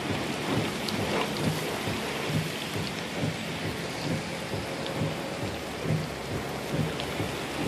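Thunderstorm wind and rain: a steady rushing noise with an irregular low rumble that comes and goes.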